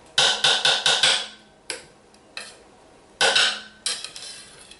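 A long metal blade stirring thick hot-process soap in a slow cooker's crock, clinking and scraping against the crock in quick strokes: a quick run of clinks near the start, a few single knocks, and another short run a little past three seconds in.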